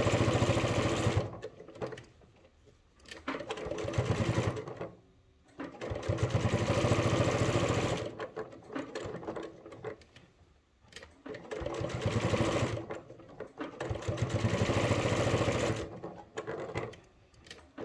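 Electric domestic sewing machine stitching through a padded fabric coaster in about seven short runs of one to two seconds each, stopping and starting between them.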